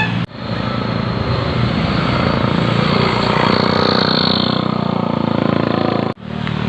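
Bus passing: a steady engine hum with road noise that swells about halfway through, no horn melody. The sound breaks off sharply just after the start and again near the end.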